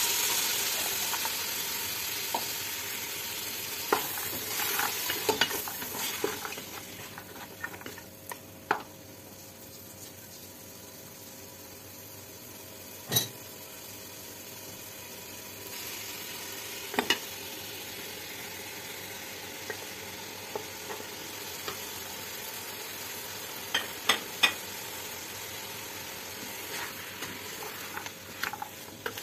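Meat, onions and beans sizzling as they fry in a pressure cooker pot while a wooden spatula stirs them, with occasional sharp knocks of the spatula against the pot. The sizzle is loudest for the first couple of seconds, then settles to a steady lower level.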